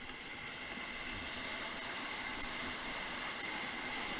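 Steady rushing of Ocoee River whitewater around a raft in a rapid, growing slightly louder.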